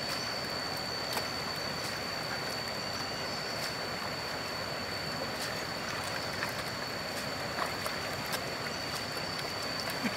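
Shallow river water running steadily, with light splashes and drips as a hand flicks water across a wooden gold-panning pan to wash the black sand off the gold. A thin, steady high-pitched tone sits above the water sound.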